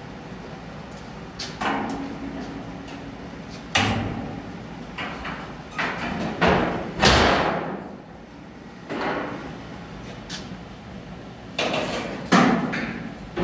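The stiff hood of a bare-steel 1951 Chevrolet pickup being worked open: a string of separate knocks and metal clunks, about eight spread out, as the latch is freed and the hood is lifted. There is a longer rattling clunk about seven seconds in and a sharp bang near the end.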